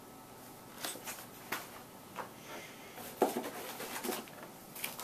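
Carded plastic tackle packages being handled and set down on a wooden table: scattered rustles and light knocks, the loudest about three seconds in.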